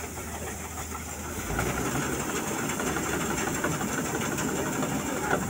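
Combine harvester's diesel engine running steadily while its unloading auger empties the grain tank; the machine gets louder about a second and a half in.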